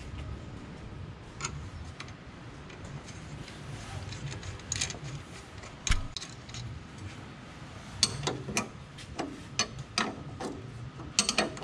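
Ratchet clicking as the lower coilover mounting bolt is run in by hand: a few scattered metal clicks, then a quicker run of strokes, about two or three a second, over the last few seconds.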